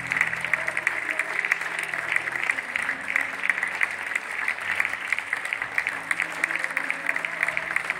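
Audience applauding, a steady dense clapping that holds without a break.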